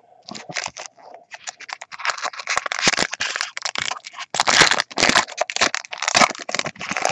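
Foil baseball card pack wrapper and card stock being handled: a dense run of crinkling, rustling and clicking, sparse at first and busiest from about two seconds in.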